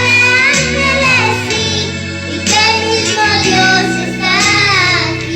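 A girl singing a song with steady instrumental backing, her voice bending and gliding between held notes.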